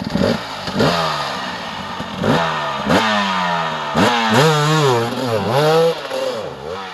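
Dirt bike engine revved hard in repeated throttle bursts, its pitch climbing sharply several times, then rising and falling over a couple of seconds before easing off near the end.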